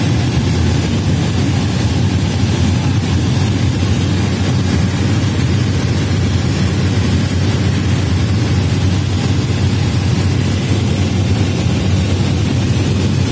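Engine and propeller of a small turboprop plane droning steadily in flight, heard inside the cabin as a constant low hum.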